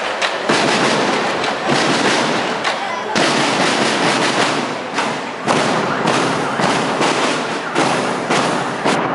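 School marching band's snare drums and cymbals playing a loud, dense rattle with irregular sharp accents, over crowd voices.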